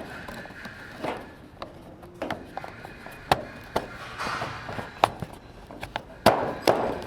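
Irregular knocks, clicks and scuffs of hands-on pipe-fitting work: pipes and tools being handled and set down.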